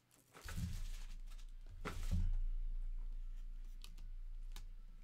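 Trading cards being handled at a table: two low thumps, about half a second and two seconds in, each followed by a slowly fading low hum, then a few small sharp clicks.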